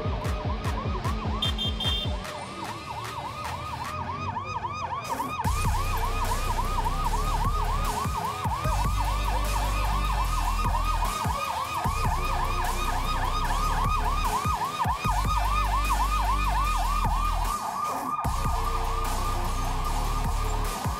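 Electronic siren sounding a fast yelp, rising and falling several times a second, with a heavy low rumble underneath from about five seconds in.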